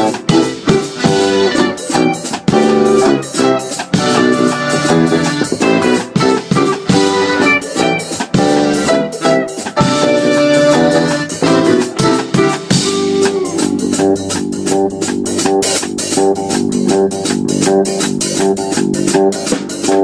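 Small live band playing an upbeat jazz-fusion number: electric bass, hollow-body electric guitar, electric keyboard and drum kit. About two-thirds of the way in the upper parts thin out, leaving the bass line and drums more to the fore.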